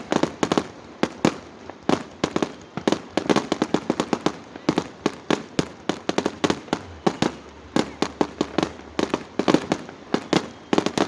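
Many fireworks going off in quick, irregular succession: sharp bangs and pops, often several a second in clusters, from aerial rockets bursting high up.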